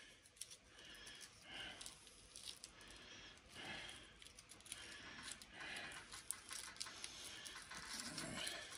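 Faint handling noise of fingers picking apart a small copper wire coil wrapped in tape and plastic: soft rustling with many small scattered clicks.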